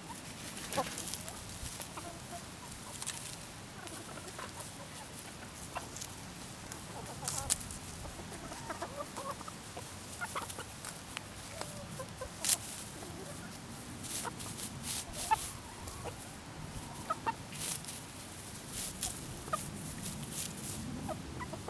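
Hens clucking softly now and then as they forage, with scattered short clicks and rustles throughout.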